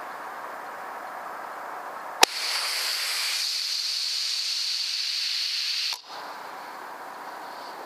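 LCS SK-19 PCP air rifle firing with a pellet jammed between magazine and barrel: a sharp crack about two seconds in, then a loud, even hiss of nearly four seconds that cuts off suddenly. The hiss is the whole air tank dumping through the gun because the rifle failed to cycle correctly.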